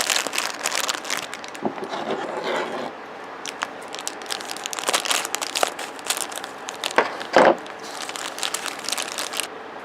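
Plastic packaging crinkling and small plastic toy parts clicking as a three-part Marvel Tsum Tsum figure is handled and fitted together, with one louder knock about seven seconds in.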